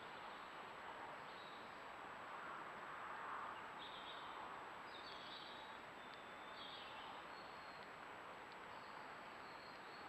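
Faint steady hiss with a thin constant high-pitched electronic whine from the trail camera's recording, and a few faint, short, high bird chirps from about four seconds in to near the end.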